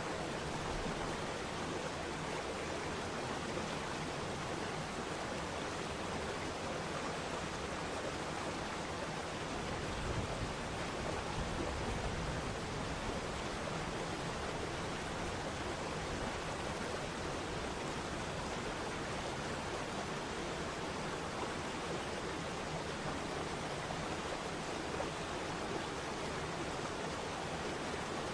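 Waterfall rushing steadily, an even wash of falling water with no break, and a low rumble swelling briefly about ten seconds in.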